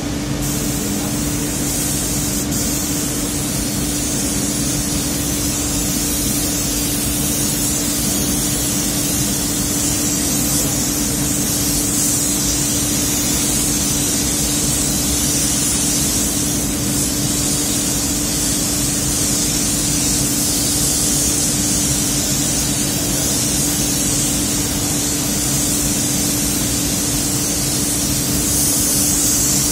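Gravity-feed compressed-air paint spray gun hissing steadily as it sprays paint, over a steady low hum.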